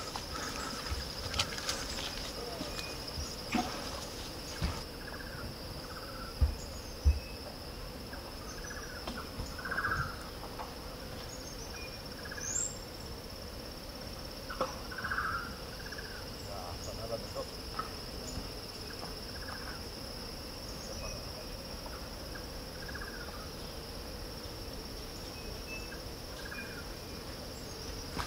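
Forest insects droning steadily on one high pitch, with a few footfalls and knocks on the leaf-littered trail in the first several seconds and soft scuffs now and then.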